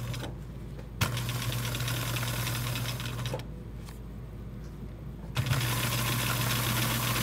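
Electric sewing machine stitching through two layers of felt: a steady motor hum with fast needle ticking. It stops for about two seconds in the middle, then starts up again.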